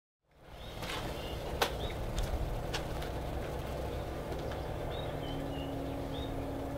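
Outdoor ambience fading in: birds giving short, high chirps every second or so over a steady low rumble, with a few sharp clicks in the first three seconds. A steady hum joins about five seconds in.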